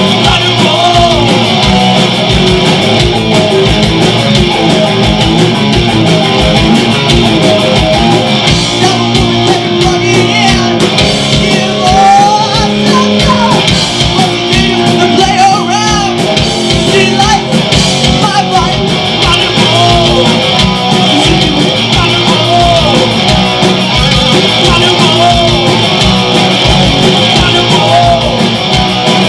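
A live rock band playing loud through stage amplifiers: electric guitar, bass guitar and drums.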